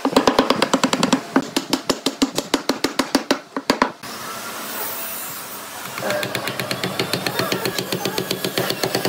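Rapid wooden knocking as the pieces of a hand-cut mitred dovetail joint are tapped together, about eight knocks a second. The knocking stops for about two seconds near the middle, then starts again a little fainter.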